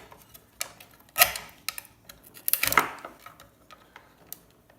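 A hand tool clicking and scraping against a circuit board as chips and components are pried off it. There are irregular sharp clicks, with a loud one about a second in and a longer scrape past the middle.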